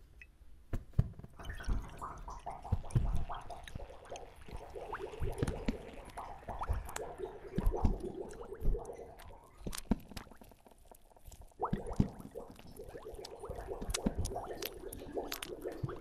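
Wet, liquid sounds with irregular clicks and soft low thumps, easing off briefly about four seconds in and again around ten seconds.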